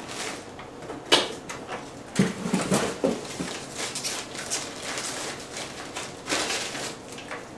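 Packaging wrap around a new camcorder crinkling and rustling as it is pulled open by hand, a run of irregular crackles.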